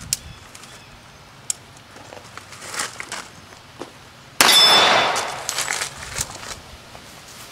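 A single shot from a 1911 .45 ACP pistol about four and a half seconds in, a sharp crack that dies away over about half a second, with a metallic ring from the struck steel plate target. Lighter clicks and footsteps come before and after it.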